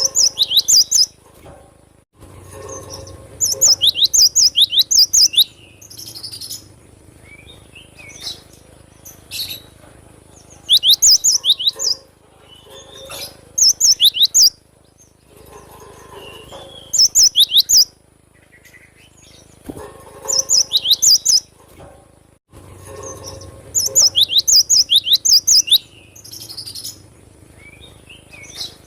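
Cinereous tit (glatik batu) singing in full voice: bursts of rapid, sharp high notes, five to eight in quick succession, repeated every few seconds with softer calls between.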